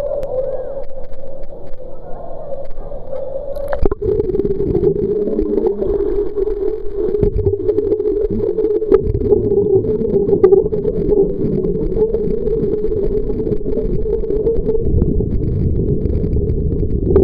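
Swimming pool heard from a camera at and under the water: a steady hum throughout, with a sharp click about four seconds in. After it comes a muffled underwater rumble with low thumps and churning as a swimmer dives in and swims freestyle past.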